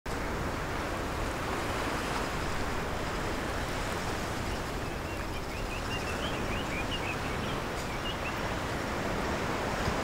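Ocean surf washing in steadily, with a run of short high chirps around the middle.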